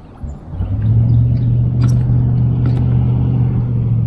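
A loud, steady low mechanical hum that starts about half a second in and holds an even pitch.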